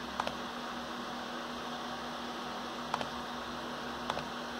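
Steady hiss and low hum of a laptop's cooling fan, with three faint clicks spread through it.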